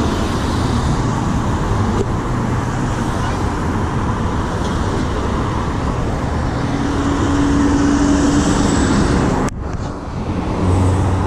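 Steady road traffic passing through a busy city intersection, cars and motorbikes going by close to the kerb. One passing vehicle's hum swells for a couple of seconds, then near the end a sharp knock as a gloved hand bumps the camera, briefly muffling the traffic.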